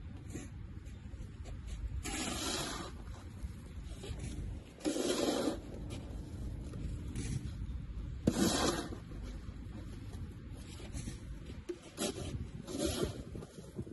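Snow shovel scraping and pushing through snow in about four separate strokes a few seconds apart, the loudest about eight seconds in.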